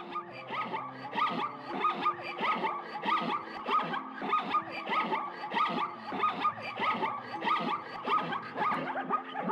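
Zebras calling in a rapid run of short, barking yelps, about three a second, over background music.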